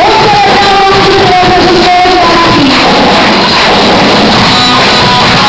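Loud gospel music from a church band, with long held melody notes.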